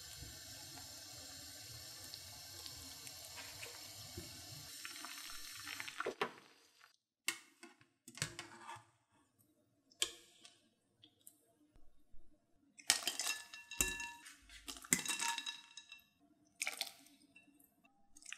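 Pot of potato dumplings boiling, a steady bubbling for about the first six seconds. Then a wire skimmer scoops them out with splashing and dripping water and tips them into a glass bowl of ice water, with a few ringing clinks against the glass.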